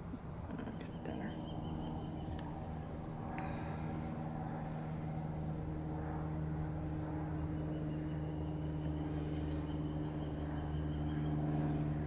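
An engine running steadily at a constant pitch, slowly growing louder toward the end.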